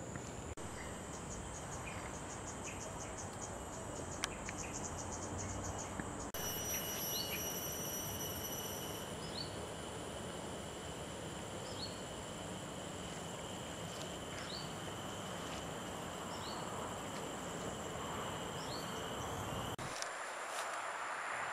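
Chorus of insects, crickets among them, with several steady high-pitched drones and a rapid pulsing trill in the first few seconds, then a short rising chirp repeating every second or two.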